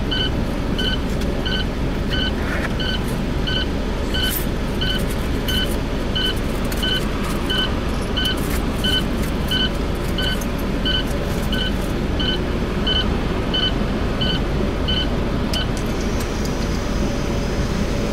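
A Daifuku drive-through car wash machine runs with a steady low rumble, heard from inside a waiting car. A repeating electronic beep sounds about three times every two seconds and stops near the end.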